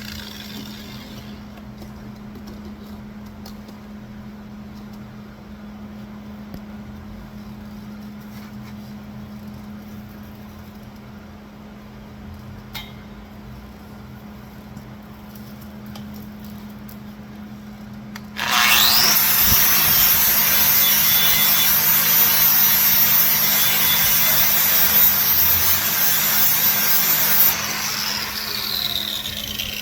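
Electric sander grinding marker lines off steel down to bare metal for welding. It starts abruptly about two-thirds of the way in, runs loud and steady for about nine seconds, then is lifted off and winds down near the end. Before it starts there is only a low steady hum and a single light knock.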